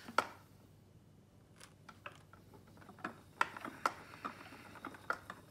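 Scattered light clicks and ticks from hand-spinning at a wooden treadle spinning wheel while drawing fibre off a hand card. The sharpest click comes just after the start, and several more cluster in the second half.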